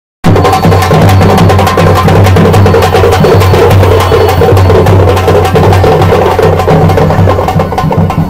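Procession drum troupe beating frame drums in a fast, dense rhythm, very loud. The drumming starts abruptly a moment in.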